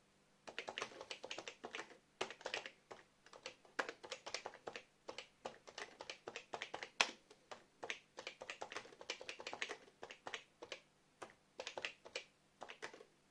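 Key Tronic E03601 computer keyboard being typed on: quick runs of key clicks with a few short pauses, starting about half a second in and stopping just before the end.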